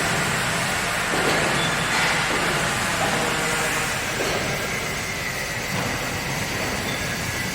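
Horizontal industrial washing machine running, its drum turning with a steady mechanical rumble and rattle.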